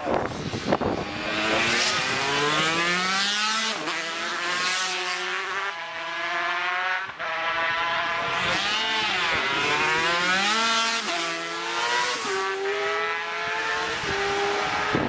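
Racing motorcycle engines revving hard as the bikes approach and pass. The pitch climbs through each gear and drops at every shift, and a second bike's engine overlaps the first about halfway through.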